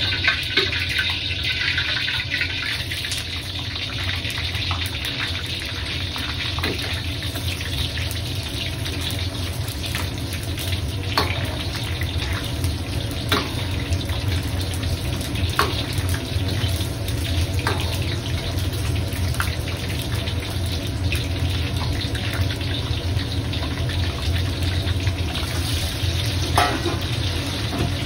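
A gas wok burner running steadily under a carbon-steel wok of hot oil, with the oil sizzling and bubbling as vegetables fry in it. A metal ladle knocks against the wok several times.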